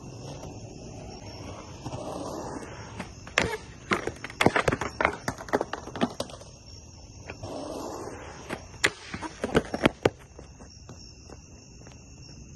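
Skateboard urethane wheels rolling on a concrete ramp twice, each run ending in a burst of sharp clacks and slaps as the board hits the coping and concrete. A steady high insect trill sounds behind it throughout.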